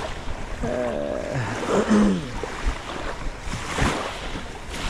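Small waves washing onto a pebble shore with wind noise on the microphone, and a short stretch of a man's voice about a second in.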